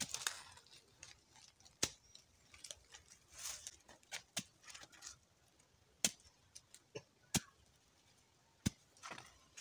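Scattered sharp snaps and clicks, four of them louder than the rest, over a faint rustle of dry leaves: wooden sticks being handled and pushed into dry leaf litter.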